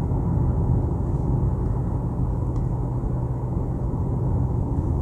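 Steady low rumble inside a Mercedes CLA220's cabin, the car's running and road noise, with a faint tick about halfway through.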